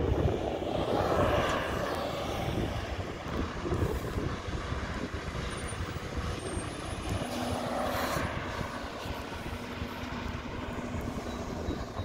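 Diesel engine of a Mack McNeilus front-loader garbage truck running as the truck drives slowly through the lot, a steady rumbling drone. A low steady hum joins about seven seconds in.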